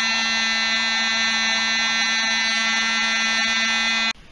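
USB-powered mini vacuum cleaner's small motor running with a steady high whine, stopping suddenly near the end.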